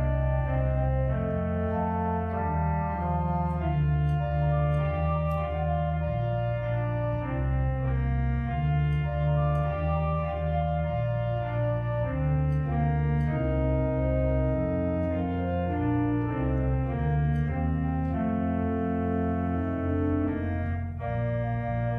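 Pipe organ playing sustained chords over a bass line that moves every second or two.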